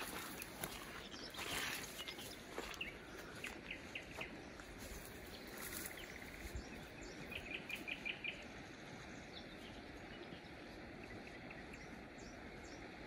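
Faint outdoor ambience with a steady hiss, a brief scuff about a second and a half in, and a small bird chirping: a few scattered chirps, then a quick run of about eight chirps around seven to eight seconds in.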